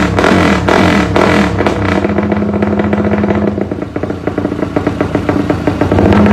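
Yamaha Y15ZR (MX King) 150 cc single-cylinder four-stroke engine running loud through an aftermarket exhaust. It is blipped in the first second or so, held at a higher note, then about four seconds in it drops to a lumpy, uneven rumble idle, rising again near the end.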